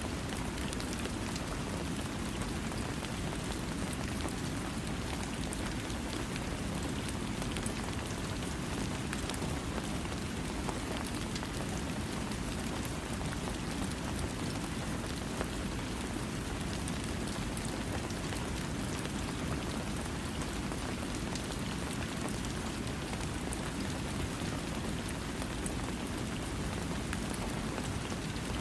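Steady rain falling, a constant even hiss heaviest in the low range, with fine patter of individual drops and no thunder.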